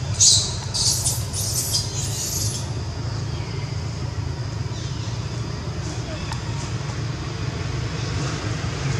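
Low, steady motor-engine hum throughout, with four short high hissing bursts in the first two and a half seconds.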